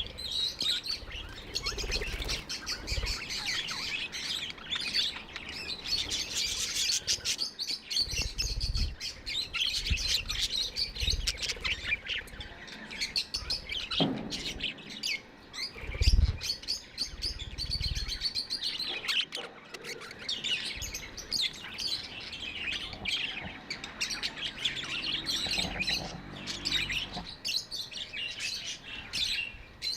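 Budgerigars chirping continuously, many quick high chirps overlapping. A low thump about halfway through is the loudest moment.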